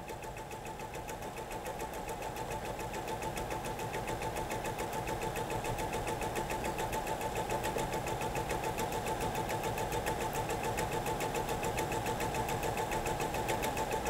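Electric sewing machine stitching a seam through two layers of cotton, a rapid, even clatter of stitches that picks up speed over the first few seconds and then runs steadily.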